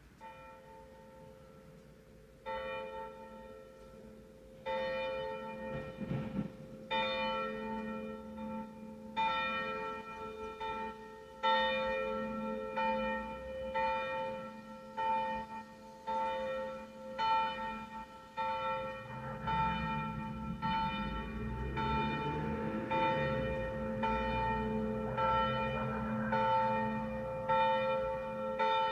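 Church bell of about 500 kg with strike tone a1, cast in 1971 by the Jan Felczyński foundry in Przemyśl, swinging and striking about once every two seconds. Each stroke rings on into the next. The strokes grow louder over the first dozen seconds as the swing builds up, and a low rumble runs underneath in the second half.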